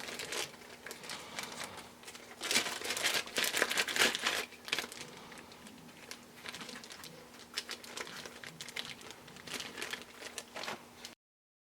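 Packaging crinkling and rustling in irregular handfuls as the holster box's contents are handled, busiest a few seconds in, then cutting off abruptly near the end.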